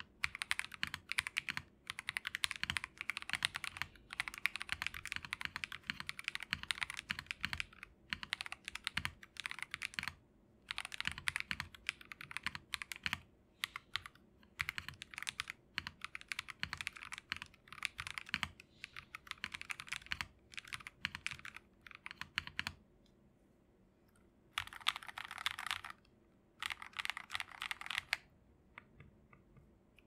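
Typing at stock on an Akko PC75B mechanical keyboard: factory-lubed Akko Wine Red switches on a 1.5 mm polycarbonate plate, capped with thick JDA-profile dye-sub PBT keycaps. Quick runs of keystrokes come with short breaks and a few longer pauses in the last third, and the typing stops shortly before the end.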